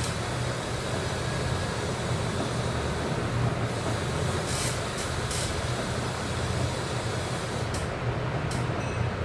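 Steady low rumble of background noise, with a few brief faint clicks a little over four seconds in and again near the end.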